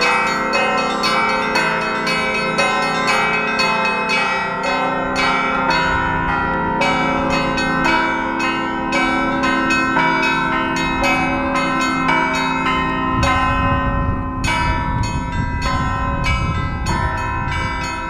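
Russian Orthodox church belfry bells rung together in a continuous peal, several bells of different pitches struck in quick succession and ringing over one another. A low rumble joins the bells about two-thirds of the way through and eases off near the end.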